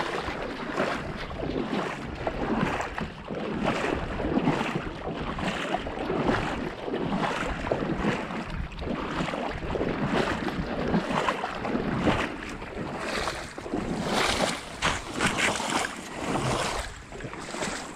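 Hunter wading through shallow lake water in waders, each stride sloshing and splashing in a steady rhythm of about one step every half second or so, with louder splashes near the end.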